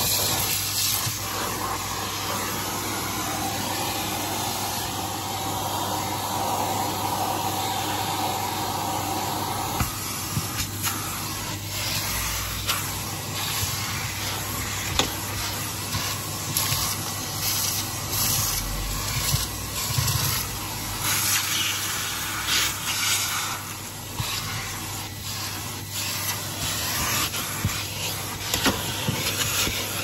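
Henry canister vacuum cleaner running steadily with a low motor hum, its crevice nozzle sucking at a rubber van floor mat. The note of the airflow changes about ten seconds in. After that, grit and sand are drawn up the nozzle and wand in many quick clicks and rattles.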